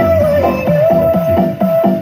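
Electronic dance music played loud through a large stacked outdoor sound system during a sound check. It has a fast kick-drum beat of about five hits a second and a held synth note that wavers briefly, then holds steady.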